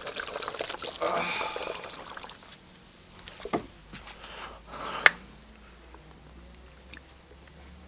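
Liquid pouring in a stream into a plastic bottle, stopping about two seconds in. A few sharp clicks follow, with a faint low hum near the end.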